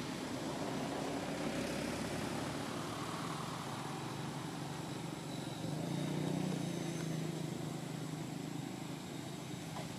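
A distant engine rumbling steadily, growing louder a little past the middle and easing off toward the end.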